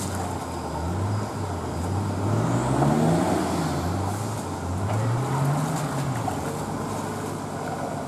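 Off-road 4x4's engine running, its revs rising and falling in several slow swells.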